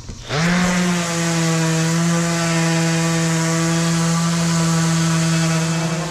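Handheld random orbital sander switched on about a third of a second in, spinning up quickly to a steady motor hum. It then runs at constant speed, sanding a glued-up wooden tabletop.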